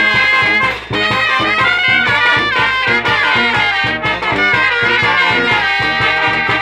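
Mexican brass band playing: brass instruments carry the melody over a steady, evenly spaced drum beat.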